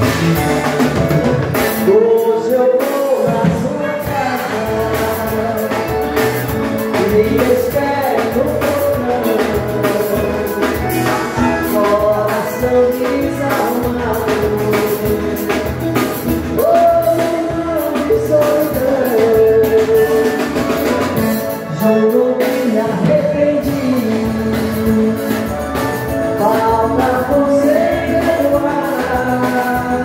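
Live dance band playing, with a woman singing lead over a steady drum kit beat.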